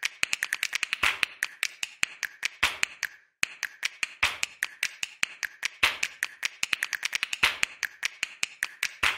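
A rapid run of sharp clicks, about ten a second, with a short break a little over three seconds in.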